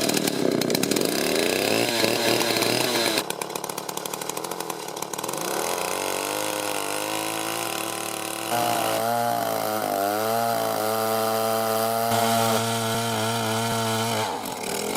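Chainsaw engine running at high revs while cutting through a large log, its pitch dipping and recovering partway through as the saw works.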